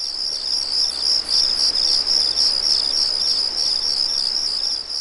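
Cricket chirping: a steady, high-pitched trill pulsing about three times a second.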